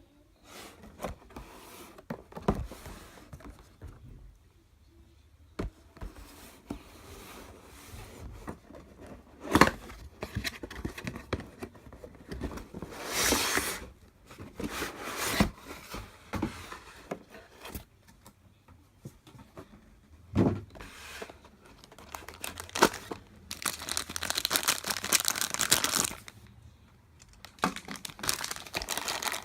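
Toy packaging being handled: plastic and paper crinkling and tearing in irregular bursts, with a longer stretch of crinkling near the end, and scattered clicks and knocks in between.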